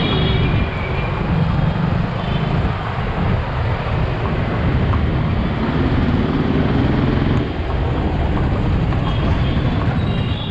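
Busy street traffic heard from a horse carriage moving through it: a steady, loud rumble of engines and road noise. A horn sounds near the end.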